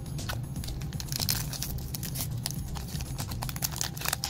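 Foil Pokémon booster pack wrapper crinkling and crackling in the hands as it is torn open, with a brighter rip about a second in. A low steady hum sits underneath.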